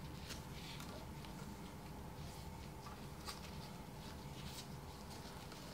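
Faint rustling and soft scattered ticks of gloved hands pressing braided stove rope into a silicone-filled stove door channel, over a low steady room hum.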